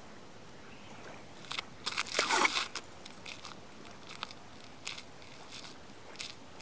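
Footsteps crunching on a gritty road, single steps spaced under a second apart. They follow a denser burst of crunching and scraping about two seconds in, the loudest part.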